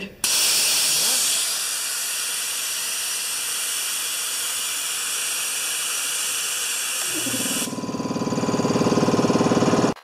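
Compressed air hissing steadily out of the tank's drain valve on an electric wheelbarrow air compressor. About seven seconds in, the compressor's motor starts up with a rising hum as the new pressure switch cuts it back in on the falling tank pressure, and the hiss stops.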